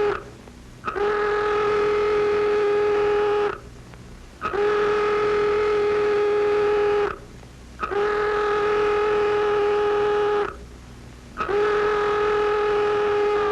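Alert klaxon horn sounding in repeated long blasts of about two and a half seconds, each a steady single-pitched blare, with gaps of just under a second. It is the SAC alert signal sending bomber crews to scramble.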